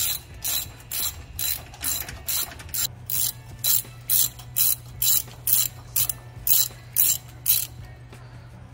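Hand ratchet with a 13 mm socket loosening a strap bolt on a truck's DPF housing: the pawl clicks in short runs about twice a second, one per swing of the handle, stopping about seven and a half seconds in.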